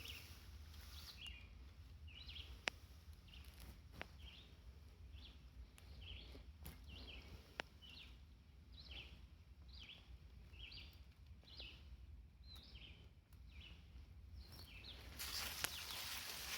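A bird calling one short chirp over and over, about one or two a second, faint over a low outdoor rumble, with a few sharp clicks. Near the end, louder rustling sets in.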